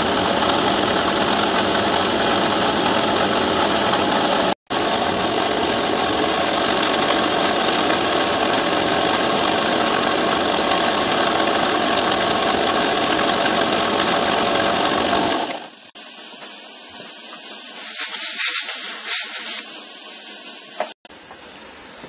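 CNC milling machine running, its spindle turning a small end mill as it cuts a pocket into a metal mould-core plate: a loud, steady machining noise. About two-thirds of the way in it gives way to a quieter, thinner sound with a few brief high hissing streaks.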